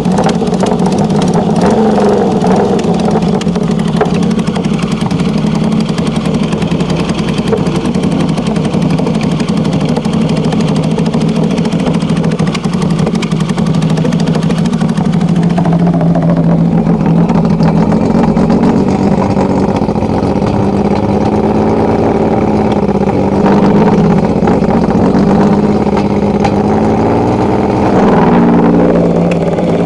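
Yamaha XS three-cylinder engine of a custom-built bike running through a new exhaust. It idles steadily at first; from about halfway the pitch wavers up and down under light throttle, then rises near the end.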